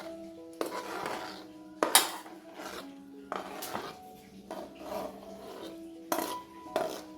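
Cooking pots and utensils clinking and knocking in irregular sharp strikes, the loudest about two seconds in, over soft background music.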